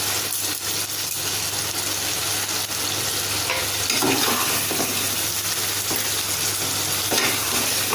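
Crab pieces sizzling steadily in oil and onion-tomato masala in a pan, with a spoon or spatula stirring and scraping now and then.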